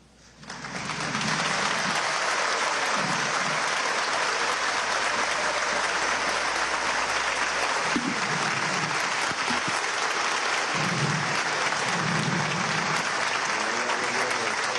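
Theatre audience applauding: the clapping starts about half a second in, swells within a second and then holds steady.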